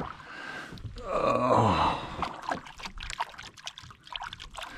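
Water trickling and dripping beside a kayak as a hand works in the water. About a second in, a person lets out a short sigh that falls in pitch, followed by scattered small drips and ticks.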